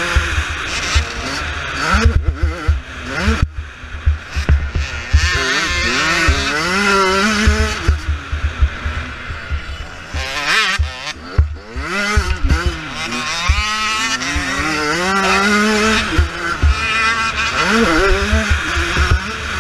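Kawasaki KX85 two-stroke motocross bike engine racing hard, its pitch climbing and dropping again and again with throttle and gear changes, with a brief drop about three and a half seconds in. Wind rumble buffets the helmet-mounted microphone underneath.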